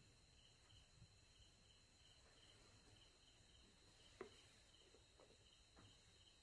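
Near silence: faint room tone with a steady high whine and a soft high chirp repeating about three times a second. A few light clicks come from about four seconds in.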